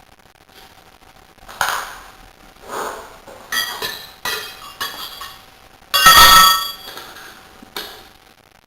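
Metal tools and parts clinking and clanking during a rear tyre change: a string of separate knocks and rings, with a longer, louder clatter about six seconds in.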